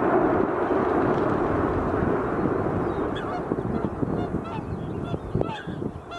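Rumble of a power-station demolition blast and collapse slowly dying away, with geese honking repeatedly over it from about three seconds in.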